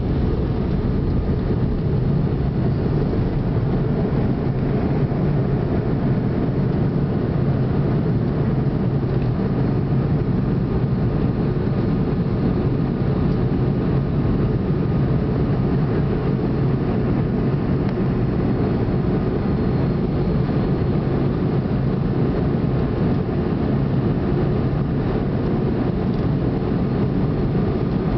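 Jet airliner engines at takeoff thrust, heard inside the cabin over the wing, through the takeoff roll, lift-off and initial climb. The sound is a steady, loud, low rushing noise with faint steady whining tones above it.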